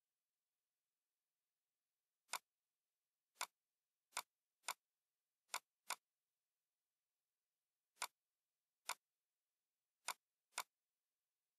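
Computer mouse clicking: about ten short, sharp single clicks at uneven intervals, several coming in quick pairs, with near silence between them.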